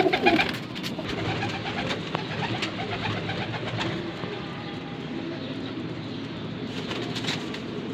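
Domestic pigeons cooing in a loft: a steady low murmur of several birds, with a few faint clicks.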